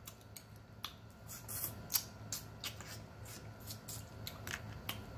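Boiled crawfish being peeled and eaten by hand: irregular sharp crackles and clicks of shell and mouth sounds, about three a second.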